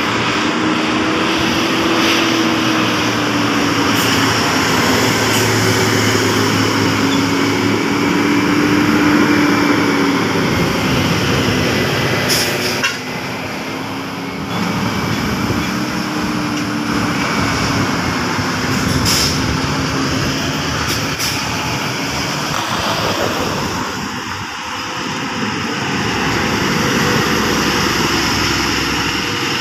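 Heavy diesel engines of buses and loaded trucks labouring up a grade and passing close, the engine note slowly falling and rising. A few short, sharp air hisses cut through.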